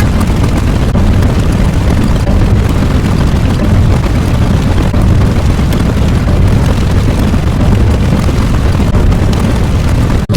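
A loud, steady rumbling noise, heaviest in the low end, that breaks off for an instant near the end.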